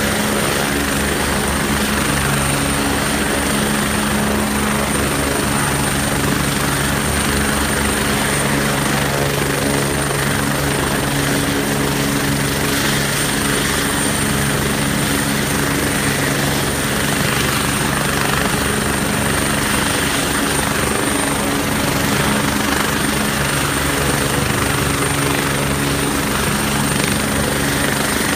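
MBB/Kawasaki BK 117 twin-engined helicopter running on the ground with its main rotor turning: a fast, even rotor beat under a steady high turbine whine, holding level without spooling up or down.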